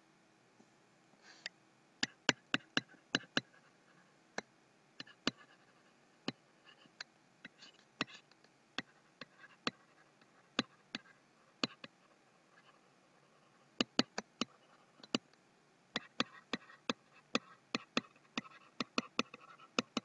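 Stylus tip tapping and scratching on a tablet while handwriting: faint, irregular sharp clicks in quick clusters, with a light scratching between them and a short lull past the middle.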